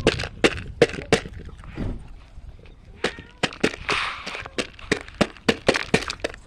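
A quick, irregular run of sharp taps, two to four a second.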